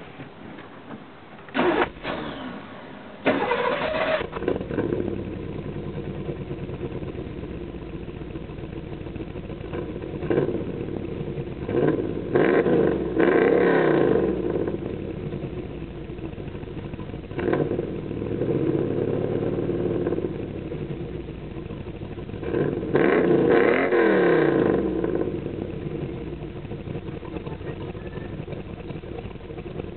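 1990 Pontiac Trans Am GTA's 350 small-block V8, with a Comp cam, Edelbrock headers and a Pacesetter cat-back exhaust, heard at the tailpipes: it starts up about two seconds in, catching fully about a second later. It then idles and is revved several times with quick blips of the throttle.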